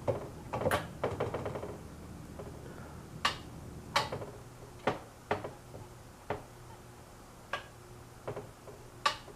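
About ten sharp switch clicks at irregular intervals, with a cluster in the first two seconds, over the steady low hum of the Emerson long nose ceiling fan's shaded-pole motor running on a capacitor decade box.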